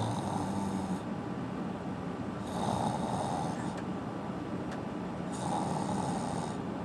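A person snoring in a slow, regular rhythm: three raspy snores, each about a second long, coming roughly every two and a half to three seconds.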